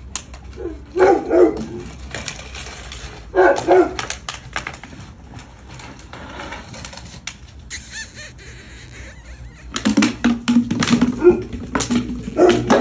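Two puppies play-fighting: a short bark about a second in and another about three and a half seconds in, then a longer stretch of low growling near the end, with scuffling throughout.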